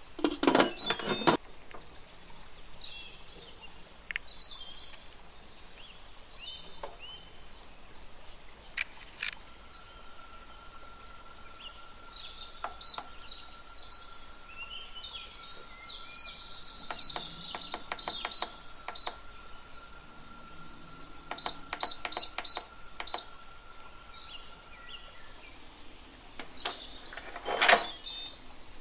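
Instant Pot pressure cooker lid set on and turned shut with clicks and clunks, then the control panel beeping as its buttons are pressed: single short beeps, then two runs of quick beeps. A louder clack of the lid handle comes near the end.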